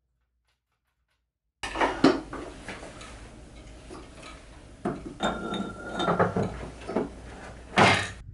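Small metal tools and items clinking and knocking on a wooden jeweller's bench as they are handled and tidied. The sound starts suddenly about a second and a half in, with several louder knocks.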